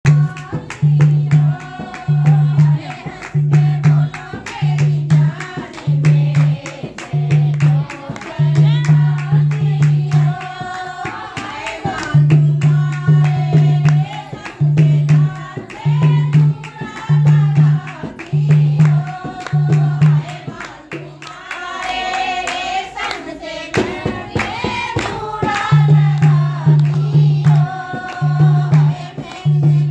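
A group of women singing a folk song together to a dholak drum beaten in a steady rhythm, with hand claps. The drum drops out for a few seconds about two-thirds of the way through while the singing carries on.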